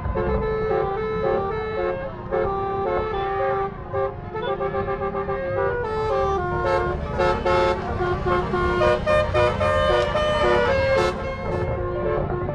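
Tour bus telolet horn, a multi-tone air horn, playing a quick tune of stepped notes that carries on through the whole stretch, over a low engine and road rumble.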